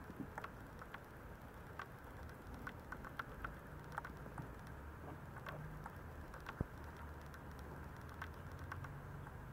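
Faint, irregular light taps and scratches of two three-week-old Maltese puppies' paws and claws as they toddle about on a quilted puppy pad, over a low steady hum.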